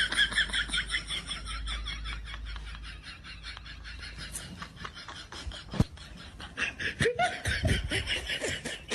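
Laughter: a long run of quick, high-pitched laughing pulses, about four or five a second, with a low rumble underneath in the first half.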